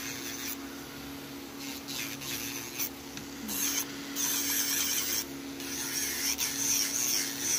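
Electric nail drill running with a steady hum while its bit grinds on an acrylic nail. The scratchy grinding comes in short strokes at first and grows stronger about halfway through.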